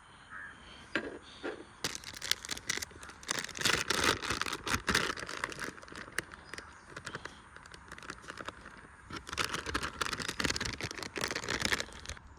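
Dense rustling and crinkling in two bouts, one about two to five seconds in and another from about nine seconds in.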